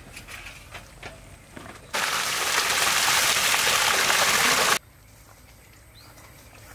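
A large basin of water poured out in one go, splashing over a heap of raw beef intestines and tripe on banana leaves. The loud gushing splash starts about two seconds in, lasts about three seconds and stops suddenly.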